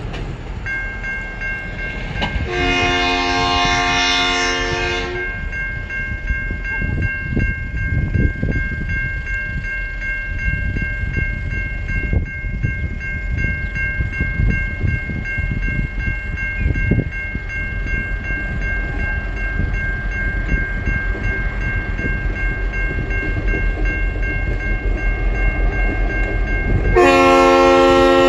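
Three TasRail DQ-class diesel locomotives hauling a coal train, engines running, sound the chime horn twice: a blast of about two and a half seconds starting about two seconds in, and a louder, shorter blast near the end. A steady high whine runs under the train noise throughout.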